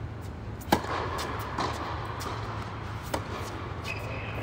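A tennis racket strikes the ball hard on a serve about a second in, the loudest sound, with a short echo from the indoor hall. A lighter ball bounce and a fainter racket hit on the return follow. A high squeak starts near the end.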